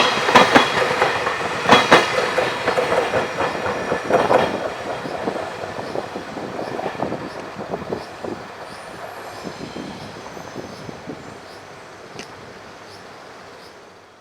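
JR Freight train rolling by, its wheels clacking over rail joints. The clacking is loud at first and fades steadily as the train moves away, then the sound cuts off abruptly at the end.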